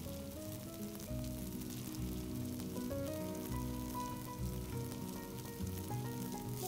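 Background music with a gentle stepping melody over faint sizzling of tofu koftas shallow-frying in oil in the cups of an appe pan.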